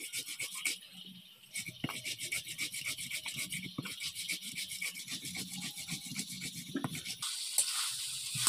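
Stone roller (nora) rolled back and forth over a flat grinding stone (shil) to crush cumin and black pepper into a paste, in rapid gritty scraping strokes. Near the end this gives way to a steady sizzle from chicken frying in a wok.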